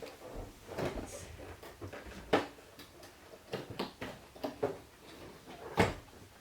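A cardboard gift box being handled and opened by hand: irregular knocks, taps and rustles, the sharpest about two and a half seconds in and near the end.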